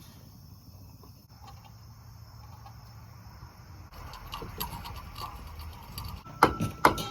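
Sharp knocks on metal, about two a second, each ringing with the same tone, start about six seconds in and are the loudest sound. Before them there are only scattered light clicks over a faint steady high chirr.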